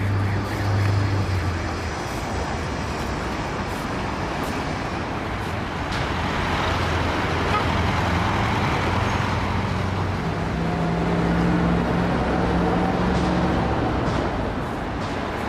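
City street traffic: steady road noise with the engine hum of passing cars and buses, a stronger engine note coming through about ten seconds in.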